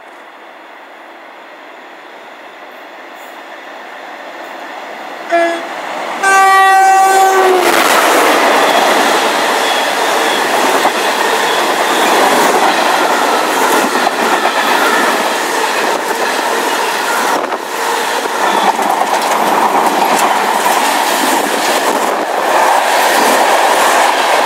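British Rail Class 60 diesel locomotive approaching fast with a steel train: a growing rumble, then two horn blasts, a short toot about five seconds in and a longer blast just after. Then comes the loud rush and clatter of the heavy steel-coil wagons rolling past.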